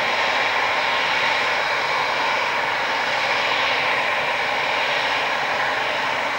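Airbus A320-214's twin CFM56-5B turbofan engines running at taxi power as the airliner rolls past. The jet noise is steady with a faint whine in it and eases slightly near the end.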